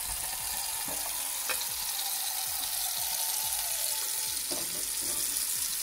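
Steady rush of running water filling a pressure cooker loaded with mason jars, with a few light knocks.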